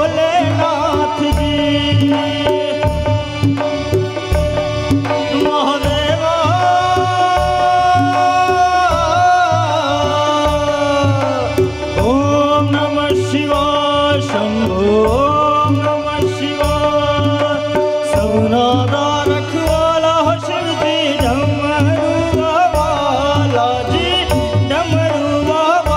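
Live Hindu devotional music: tabla playing a steady rhythm under a harmonium and keyboard melody with sliding, bending notes.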